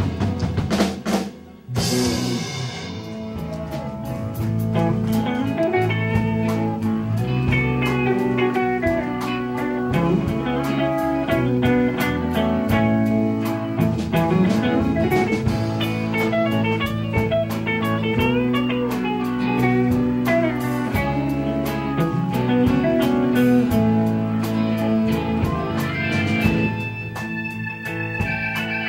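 Live instrumental blues-rock band: electric guitars over a drum kit and bass, with a lead guitar bending notes in the middle. The sound drops out briefly about a second and a half in, and a held keyboard chord comes in near the end.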